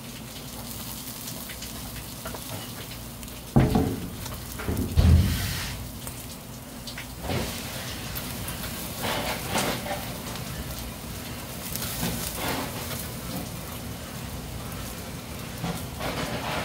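Freshwater eels sizzling on a wire grill over glowing charcoal, with dripping fat popping and crackling on the coals. Two dull thumps come about three and a half and five seconds in.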